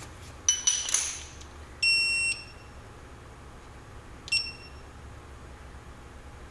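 Electronic beeping: a steady beep of about half a second roughly two seconds in and a shorter one of the same pitch about two seconds later. A few sharp clicks come shortly before the first beep.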